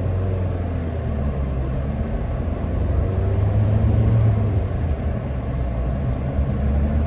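1995 Mitsubishi Pajero Mini being driven on a test drive after repairs: a steady low engine and road rumble that swells for a moment around the middle.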